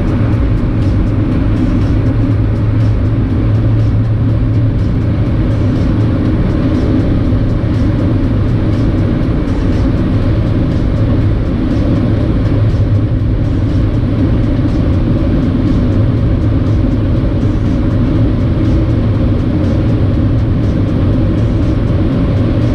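Inside the cabin of an Audi TDI diesel car accelerating at high autobahn speed, from about 200 to 240 km/h. A steady low drone of engine, tyres and wind.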